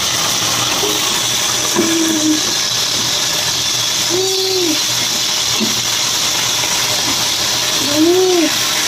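Marinated chicken pieces being dropped by hand into a hot kadai of frying onions and tomatoes, with a steady sizzle throughout. Two short low humming tones come about four and eight seconds in.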